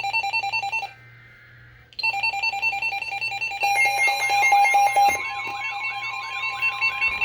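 Emergency Alert System activation for a marine warning: rapid electronic alert beeping, broken for about a second by a faint data burst of the digital alert header. The beeping then resumes, and a warbling alert tone joins it a few seconds in.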